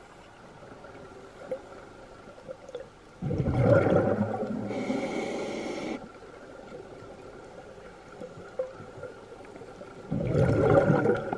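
Scuba regulator breathing heard underwater: two loud bursts of bubbling exhaust bubbles, the first about three seconds in and lasting about three seconds, trailing into a higher hiss, the second starting near the end, over a low steady underwater hiss.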